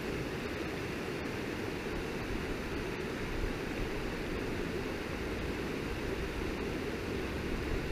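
Steady rush of flowing river water, an even noise that holds at one level.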